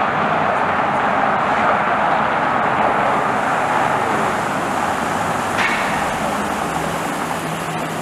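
Cars driving slowly along a wet street: a steady hiss of tyres on the wet surface mixed with engine noise, easing a little in the second half. A short click comes about five and a half seconds in, and a low steady engine hum sets in near the end.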